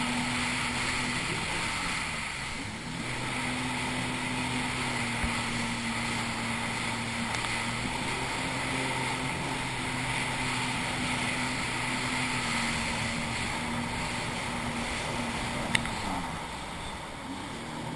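Jet ski engine running steadily under way, with wind and rushing spray over it. The engine note dips briefly about three seconds in and falls again near the end, and there is one sharp click shortly before the end.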